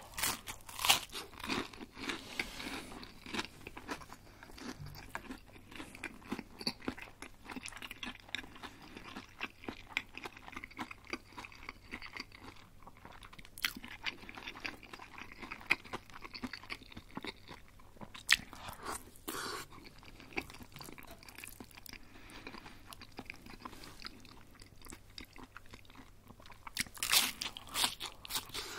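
Close-miked biting and chewing of crispy breaded chicken schnitzel: steady wet chewing with crunchy crackles. Louder crunching bites come at the start, about two-thirds of the way in, and near the end.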